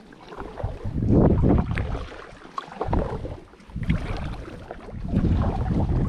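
Kayak paddle strokes on an Itiwit X100+ inflatable drop-stitch kayak: water swishing and splashing with each stroke, about four strokes in a steady rhythm.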